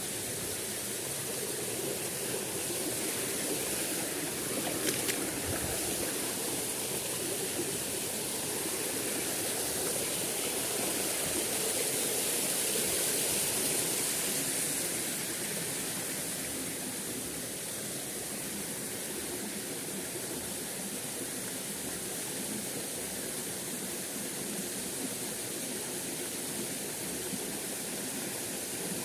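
Small stream flowing steadily over rocks, a continuous rushing with one brief click about five seconds in.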